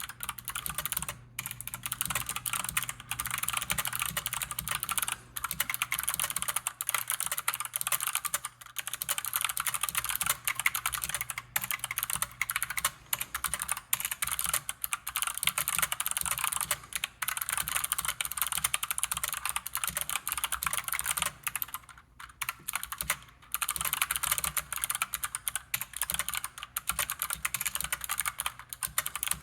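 A GMMK mechanical keyboard with clicky Kailh Box Jade switches being typed on steadily: a fast stream of sharp, crisp key clicks with a few brief pauses.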